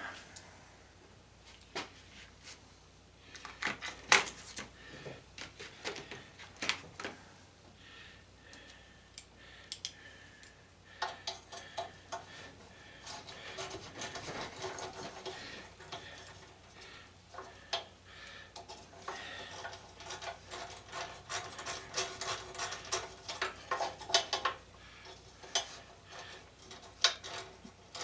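Metal hand tools clicking, clinking and scraping on the metal parts of a belt/disc sander being dismantled, with scattered single knocks and two stretches of quick ticking, one about eleven seconds in and another from about nineteen seconds.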